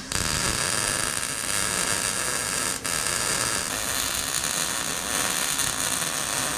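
Wire-feed (MIG-style) welding arc running steadily on a steel hand-cart frame: a continuous frying crackle, broken briefly about three seconds in.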